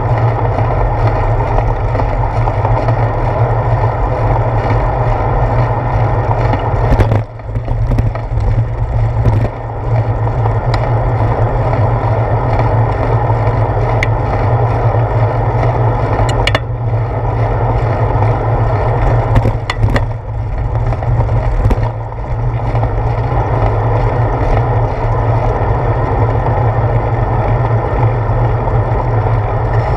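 Wind and road rumble picked up by a handlebar-mounted camera on a moving bicycle: a loud, steady noise with a low hum, broken by a few short knocks and brief dips, the first about seven seconds in.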